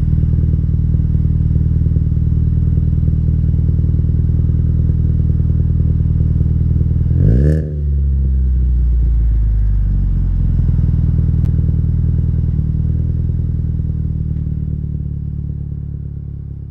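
Alfa Romeo 159 Ti's 1750 TBi turbocharged four-cylinder petrol engine idling through its modified exhaust with aftermarket downpipe, heard at the tailpipes. About seven seconds in it is given one quick rev that drops straight back to idle, and the sound fades out near the end.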